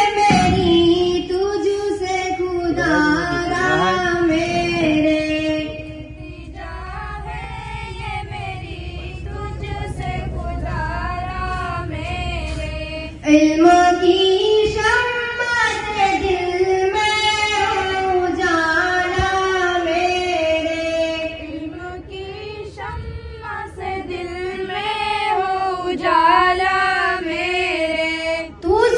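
Young girls singing a prayer into a microphone: a slow melody of long held, wavering notes without accompaniment, growing louder again about halfway through.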